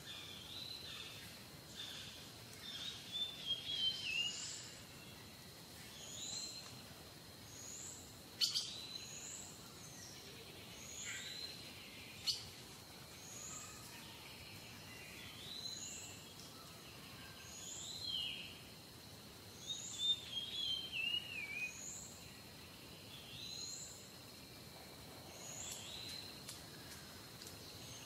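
Small birds calling: a short high chirp repeated about every two seconds, with a quick falling twitter twice. Two sharp clicks come in the middle.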